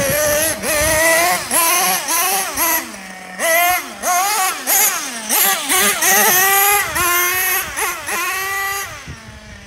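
Team Associated MGT 4.6 RC monster truck's small nitro engine revving in repeated throttle bursts, its pitch rising and falling sharply, dropping back to a low idle twice along the way.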